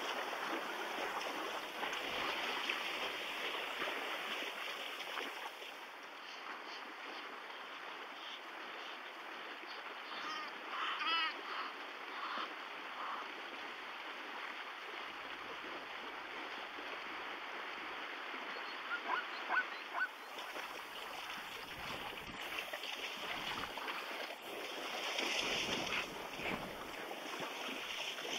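Zebras wading across a shallow river, their legs splashing steadily through the water. A few short calls with a rising and falling pitch come about a third of the way in.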